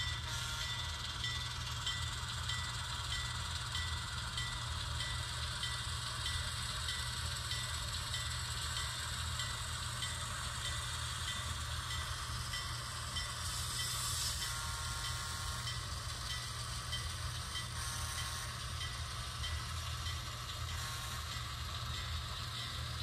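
Sound-equipped HO scale Rapido 44-ton switcher playing its diesel locomotive sound through the model's small speaker, running steadily. A light tick repeats about twice a second through the first third, and a short hiss comes near the middle.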